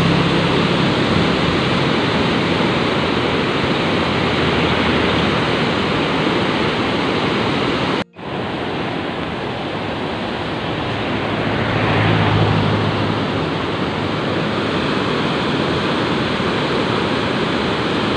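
Steady, loud rush of white-water rapids in the river gorge below the falls, heard from high above. The sound cuts out for an instant about eight seconds in.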